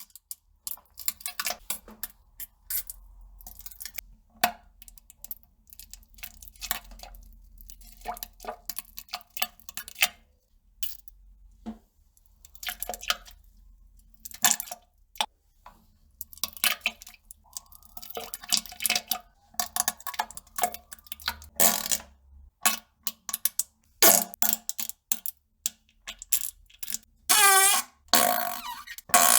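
Defecation and fart sounds: a long, irregular run of short wet splats and plops, with a few pitched farts among them, one with a wavering pitch near the end.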